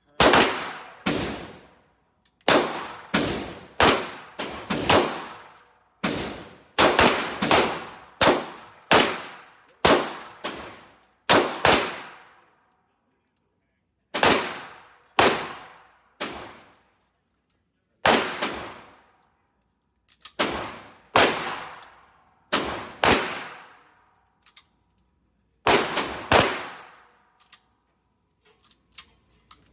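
A long string of gunshots, about thirty in all, fired one after another roughly every half second to a second in runs with short pauses. Each crack is sharp and rings off into a fading echo.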